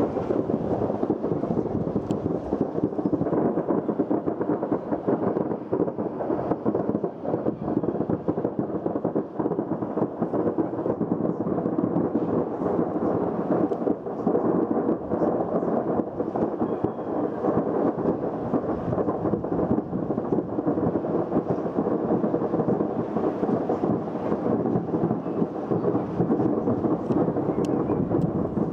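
Continuous rumbling crackle of a mass of fireworks going off at once, the many small bangs running together into one steady din.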